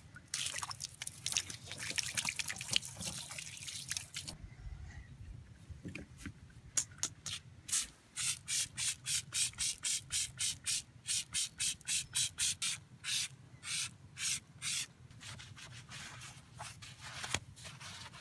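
Trigger spray bottle of wheel cleaner pumped over and over onto an alloy wheel, a short hiss of spray with each squeeze, about two a second, after a few seconds of denser hissing at the start. Near the end a sponge rubs over the wet wheel.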